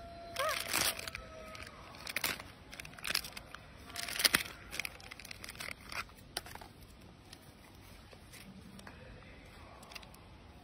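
A macaque tearing open and handling a crinkly plastic snack wrapper, in a series of short, sharp crackling rustles, the loudest about four seconds in.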